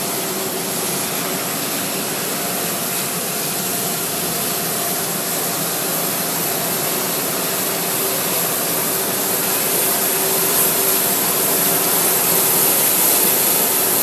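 Jet airliner turbine noise: a steady rushing with a thin high whine, growing a little louder near the end.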